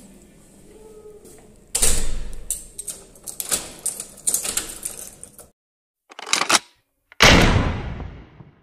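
A door pulled shut with a bang about two seconds in, followed by a few seconds of metallic clicking and scraping as a key is turned in its lock and the handle worked. Near the end, a short burst and then a loud whoosh that dies away, an intro sound effect.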